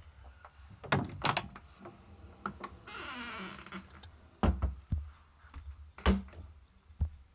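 A series of dull thumps and knocks, the loudest about one, four and a half and six seconds in, with a brief hissing scrape about three seconds in.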